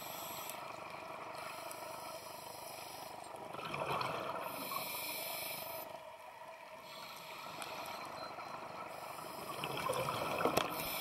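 A scuba diver breathing through a regulator underwater: hissing inhalations and bubbly exhalations in slow cycles. The sound swells about three and a half seconds in and again near the end.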